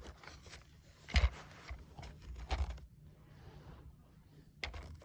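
Hard plastic Nerf blaster parts being handled: scraping and rattling, with a sharp knock about a second in and two smaller knocks later, the last near the end.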